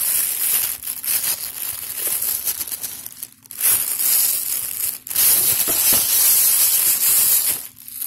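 Clear plastic bag crinkling loudly as it is handled and pulled back from a pair of sneakers in their box, with short pauses a little after three and five seconds in.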